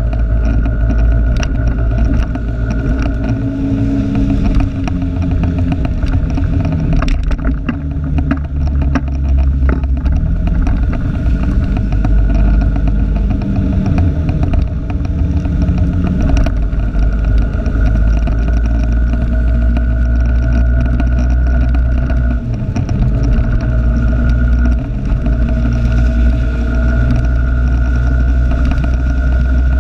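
Motor vehicle engine running on the move, picked up by a camera clipped to the rear-view mirror, with a heavy low rumble and a steady high whine that drifts slightly in pitch. A few sharp clicks come about a third of the way in.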